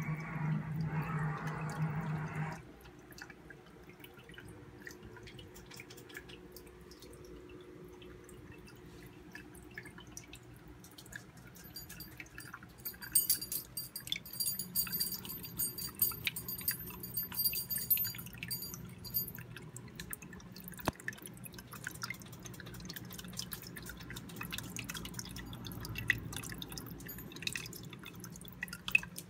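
Water from a homemade aquarium filter waterfall dripping and trickling into the tank: irregular drips over a low steady hum, louder for the first two seconds or so.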